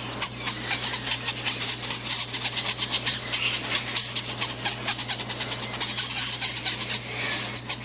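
Newly hatched parrot chicks begging to be fed: a rapid, high-pitched rasping chatter of many short cheeps a second, over a low steady hum.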